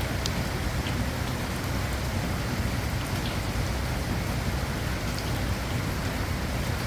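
Steady rain falling on a surface, an even hiss with a few distinct drop ticks scattered through it.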